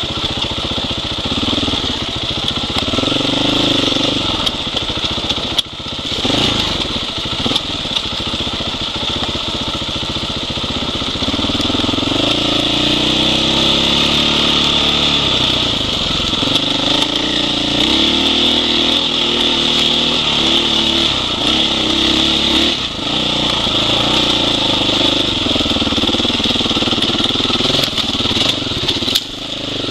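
Husqvarna 501 Enduro's single-cylinder four-stroke engine revving up and down as the dirt bike climbs and descends a rocky trail. Short knocks and clatter from the bike over the rocks come through now and then.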